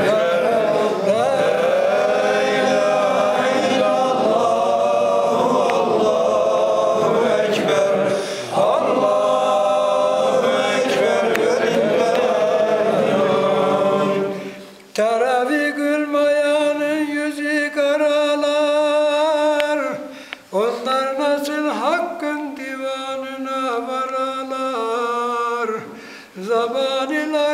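Male voice singing a Turkish Islamic hymn (ilahi) in long, drawn-out chanted lines. About halfway through the sound thins to one clearer voice, which breaks off briefly twice.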